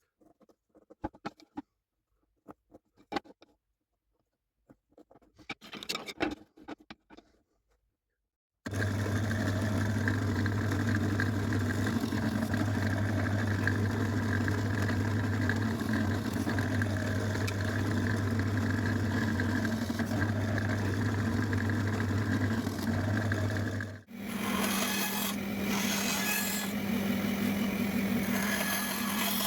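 Light taps and handling clicks, then about nine seconds in a woodworking power tool starts and runs steadily, working wood. Near the end it breaks off for a moment and carries on at a higher-pitched hum.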